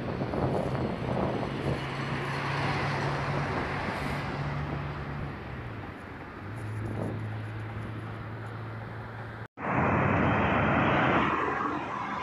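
Outdoor road traffic: a steady low engine hum over a rushing noise, the hum dropping in pitch about six seconds in. After an abrupt cut a little over nine seconds in, the rushing of motorway traffic is louder for a second or two.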